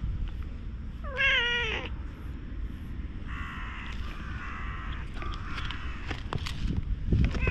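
Domestic cat meowing: a short wavering meow about a second in, a longer, fainter drawn-out call in the middle, and the start of another meow near the end.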